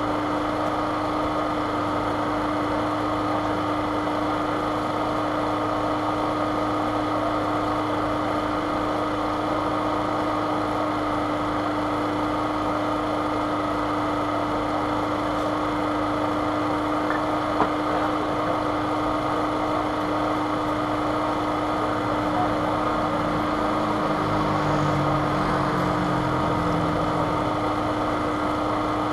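Steady mechanical hum like an idling engine, with one constant tone. A faint low wavering sound joins it for a few seconds near the end.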